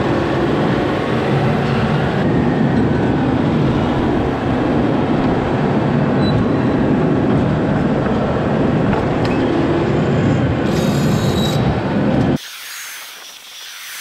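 John Deere loader tractor running and driving over a pile of cracked corn to pack it: a loud, steady engine rumble with machine rattle. It cuts off suddenly about twelve seconds in, leaving only a faint hiss.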